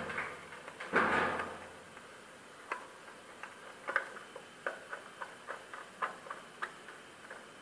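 Small irregular clicks and scrapes of wires and a screwdriver being worked at the terminal strip inside a plastic submersible-pump starter box, with a louder rustling scrape about a second in.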